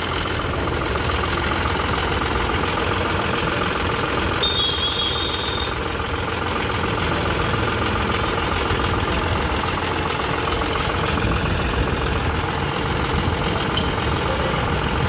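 John Deere 5310 tractor's three-cylinder diesel engine idling steadily.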